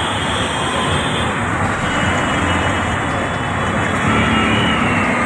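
Steady din of road traffic and vehicle engines, auto-rickshaws among them, with no single sound standing out.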